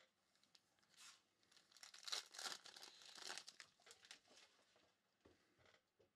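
Foil trading-card pack torn open, the wrapper crinkling for a couple of seconds before the stack of cards is taken out.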